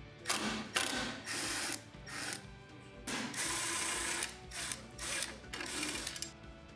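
Cordless power driver running in short bursts, about nine of them with a longer run about three seconds in, unscrewing the scooter controller's mounting screws. Faint background music underneath.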